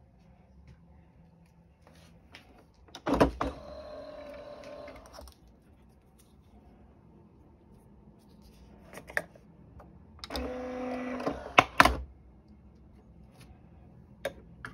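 Nespresso Vertuo Plus coffee machine being handled while a capsule is loaded: a sharp click about three seconds in, followed by about two seconds of steady mechanical sound. A second spell of steady mechanical sound comes about ten seconds in and ends in a sharp click, with a few lighter clicks near the end.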